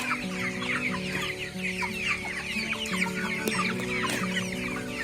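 A flock of young broiler chickens peeping and clucking in a constant overlapping chatter of short, high, falling chirps, over a steady low held tone.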